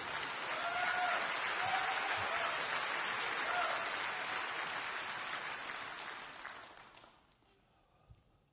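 A large congregation applauding, a steady wash of clapping that dies away about seven seconds in.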